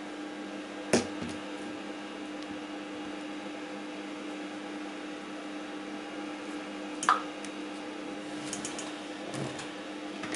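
Spatula scraping bread dough down the sides of a kitchen robot's stainless steel bowl, with two sharp knocks against the bowl, about a second in and about seven seconds in, over a steady hum.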